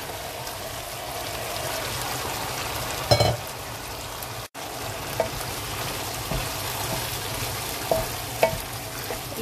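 Chicken pieces sizzling in hot oil with onions and tomatoes, stirred and scraped with a wooden spatula. A single sharp knock about three seconds in, and a few light clacks near the end.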